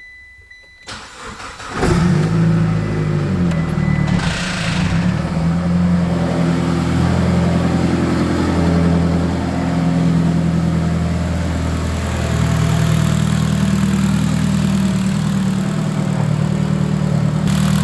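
Mitsubishi Lancer Evolution's turbocharged four-cylinder engine cranking and catching about two seconds in, then running steadily at idle just after an oil change.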